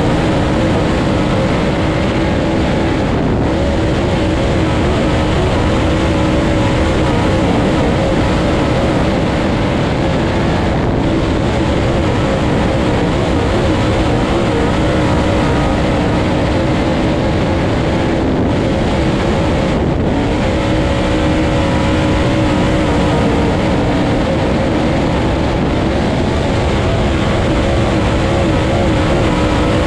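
Dirt late model race car's V8 engine running hard at racing speed, heard from inside the cockpit. It is a steady, loud drone whose pitch wavers slightly as the car goes around the track.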